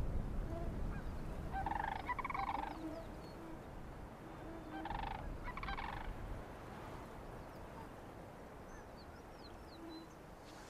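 Cranes calling in two short bouts, about two seconds in and again about five seconds in, with a few faint high chirps of small birds over a low steady background.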